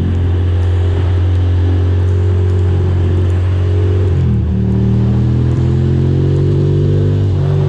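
Ducati Monster's V-twin engine running steadily while riding, over a haze of road and wind noise. About four seconds in the engine note dips briefly, then the revs climb slowly.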